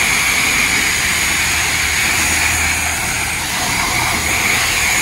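High-pressure car wash wand spraying water against the side of a pickup truck: a steady hiss with a low hum underneath.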